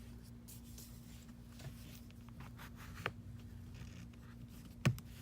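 A pry tool scraping faintly along the edge of an iPhone's glued screen as it is prised from the frame, with two sharp clicks about three and five seconds in.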